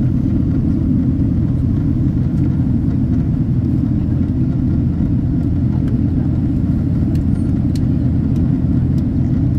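Steady low rumble of cabin noise inside a Boeing 767-300 airliner in flight: engine and airflow noise.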